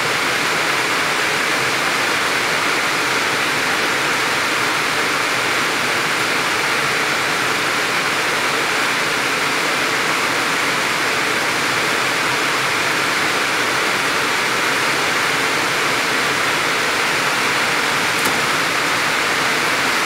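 Steady, even rushing noise with no change in level or pitch, like air or hiss, with one faint tick near the end.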